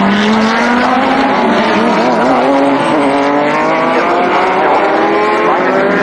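GT race car engines at full throttle, their pitch climbing steadily as they accelerate, with a brief dip about three seconds in.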